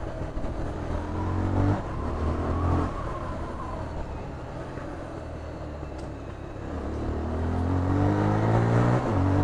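Bajaj Pulsar 220 motorcycle's single-cylinder engine pulling, its note rising with revs. It drops back twice in the first three seconds, then climbs steadily again over the last couple of seconds.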